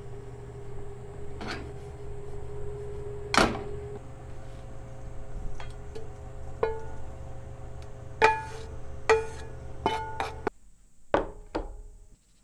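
A wooden spatula scrapes and knocks against a frying pan and a stainless steel bowl as toasted spice powder is tipped out, giving several sharp irregular knocks. The bowl rings briefly after many of them. A steady low hum lies underneath and stops suddenly about ten and a half seconds in.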